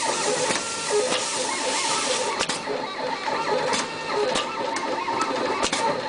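SWT508 BHT2 automatic flat-sheath wire stripping and cutting machine running, its feed rollers driving the wire through, with a sharp click about every second as it cuts and strips.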